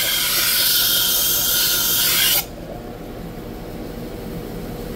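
A knife's steel edge ground against the spinning resin-bonded diamond wheel of a Tradesman Edge Apex wet grinder, a harsh hiss from a light pass to raise the burr at the tip. The grinding stops suddenly about two and a half seconds in, leaving the grinder's DC motor and wheel running with a steady hum.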